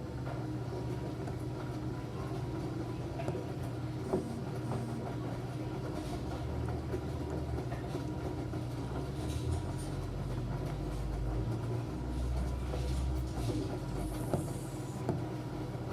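Enxuta Júnior 2 kg washing machine running: a steady motor hum with small clicks and knocks, its low rumble changing strength several times.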